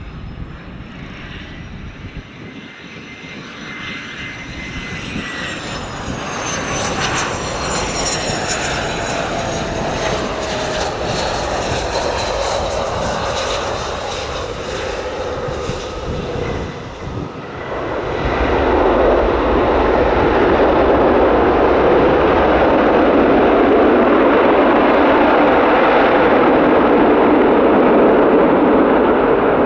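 Twin-engine business jet landing: a jet whine that rises and falls in pitch as it passes on approach, then, about eighteen seconds in, a much louder steady roar as the thrust reversers are deployed on the rollout.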